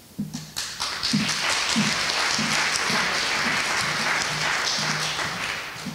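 Small audience applauding. The clapping starts just after the start, holds steady, and dies away near the end.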